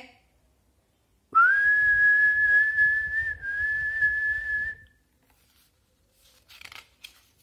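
A woman whistling one long, steady high note, sliding up into it at the start, with a brief break about two seconds in.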